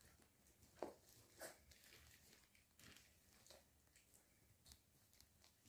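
Faint scuffling and patter of two five-week-old American Staffordshire Terrier puppies play-fighting on blankets, with a few soft bumps and clicks.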